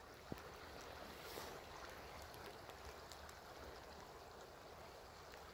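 Faint, steady rush of a small brook flowing between snow-covered rocks.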